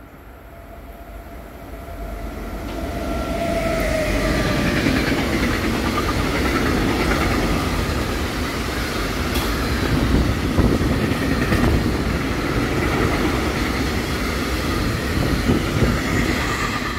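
A freight train of tank wagons, hauled by a Captrain Vectron locomotive, approaches and passes close by. It grows louder over the first four seconds, with a faint steady whine at first. Then the wagons' wheels keep up a steady rumble and clatter on the rails.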